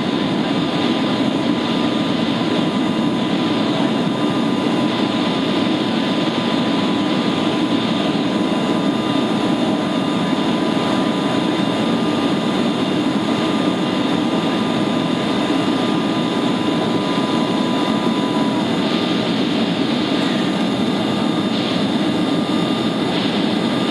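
Steady rushing noise of a Boeing 757's cabin in flight on approach, with a faint steady whine that stops about three-quarters of the way through.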